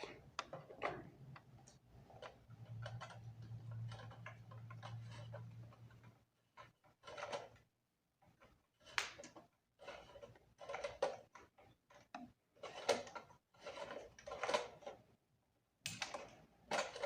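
Plastic parts of a ring light and its stand clicking, knocking and rattling as they are handled and fitted together, in irregular short knocks. A low hum runs for a few seconds near the start.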